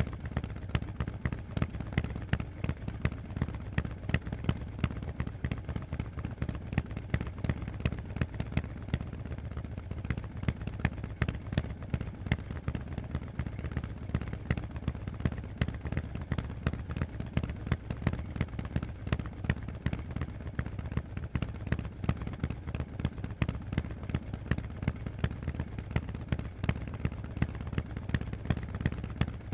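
Harley-Davidson Forty-Eight's air-cooled 1200 cc V-twin running at low, steady revs through loud Vance & Hines aftermarket exhausts, a rapid, uneven train of sharp exhaust pulses with no revving.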